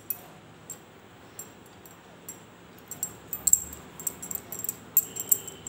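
Hands rolling soft maida dough into small gulab jamun balls, with light, irregular clicks and clinks that come thicker in the second half.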